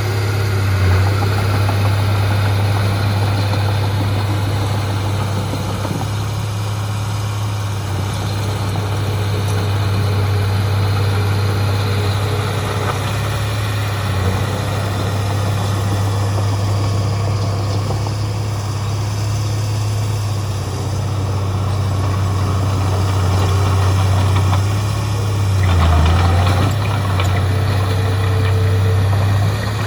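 Heavy diesel earthmoving engine running steadily with a deep, even drone, its note briefly dropping and then swelling a little near the end.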